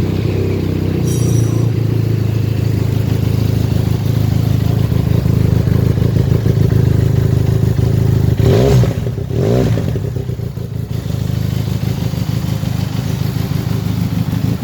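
Benelli TRK502's 500 cc parallel-twin engine idling steadily just after a start, blipped twice briefly about eight and a half and nine and a half seconds in before settling back to idle.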